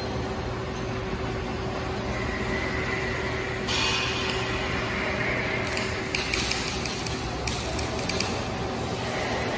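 Steady factory workshop noise: a constant hum under a broad hiss, with a few clicks and taps about two thirds of the way through.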